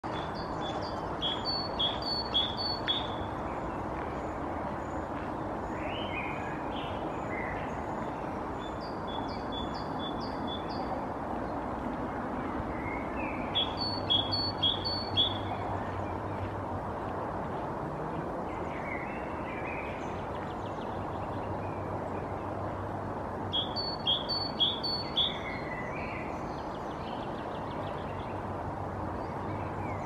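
Wild birds singing: a short phrase of five or six clear high notes, repeated four times, with scattered lower chirps between the phrases, over a steady background hum.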